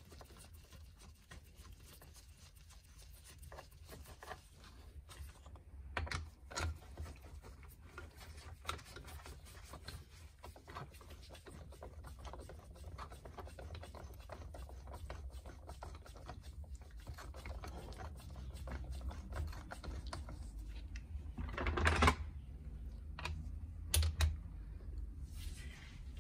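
Light clicks and clinks of small metal parts being handled on an engine: the cylinder-head nuts being run down on their studs by hand. A louder short clatter comes about 22 seconds in, and a smaller one about two seconds later.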